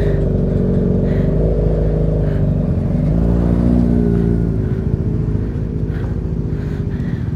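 Exhaust note of a Kawasaki Ninja 1000's inline-four engine, running steadily, with one slow rise and fall in pitch about three to five seconds in.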